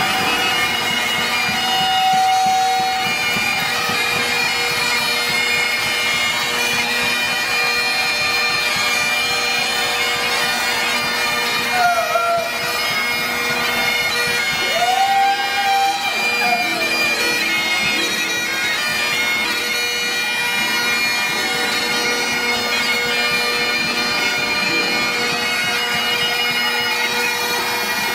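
Several bagpipes holding a loud, steady drone chord, sounded as a Celtic war sound meant to intimidate before battle. A few brief sliding notes rise and fall over it about halfway through.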